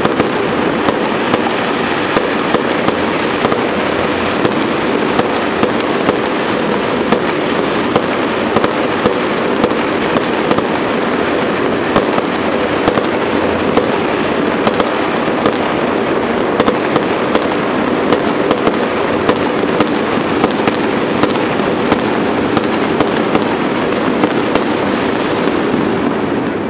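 Many fireworks going off at once: a dense, unbroken crackling din with frequent sharp bangs at irregular intervals.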